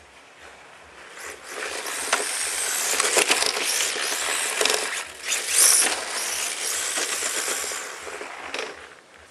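Electric 1/10 RC drift car with a brushless motor running on asphalt close by: tyre scrub and rolling noise with a high motor whine, swelling about a second in and fading away near the end.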